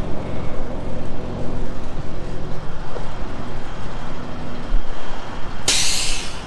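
Truck engine idling, a steady low hum, with a short, loud burst of hiss about six seconds in.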